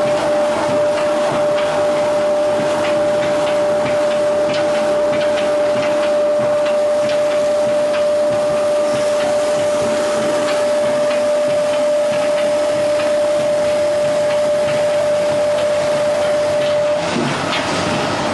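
Veneer peeling and clipping lathe running: a steady machine whine over continuous rattling and scraping of wood, with irregular knocks. The whine stops near the end.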